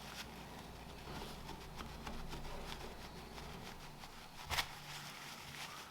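Faint small clicks and scrapes as a .22LR bullet is wiggled and pulled loose from its brass case, with one sharper click about four and a half seconds in. A low hum runs underneath and stops a little past halfway.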